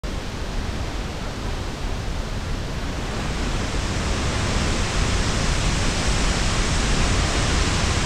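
Steady rush of water from the La Fortuna Waterfall, a roughly 70 m drop into a plunge pool, and the rocky river below it, growing louder over the first few seconds.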